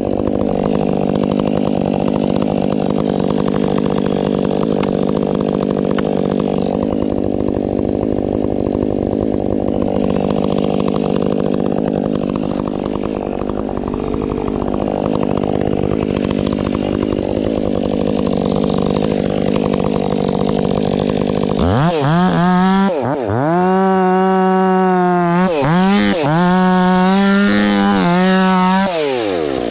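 Husqvarna 500i two-stroke chainsaw cutting into ponderosa pine, running steadily under load. About three-quarters of the way through it revs out free at high speed with a few quick throttle dips, then drops off at the very end.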